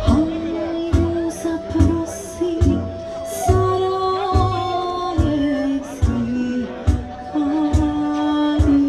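A Bosnian folk band playing live. A kick drum hits roughly once a second with cymbal strokes over it, under a melody of long held notes that step up and down.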